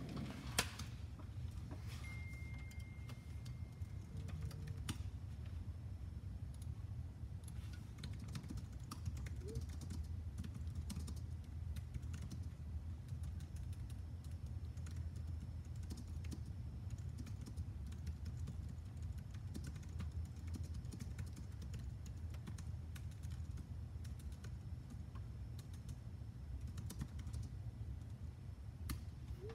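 Typing on a computer keyboard: irregular key clicks throughout, over a steady low hum.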